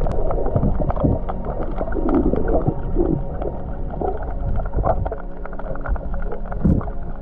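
Muffled underwater sound of a swimming diver heard through a submerged action camera: low rumbling and gurgling water movement with irregular soft knocks, easing off about two-thirds of the way through.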